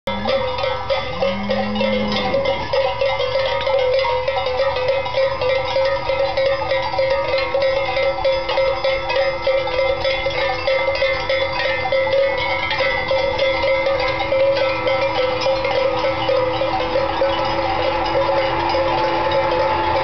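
Many cowbells worn by a herd of walking cattle, clanking and jangling continuously.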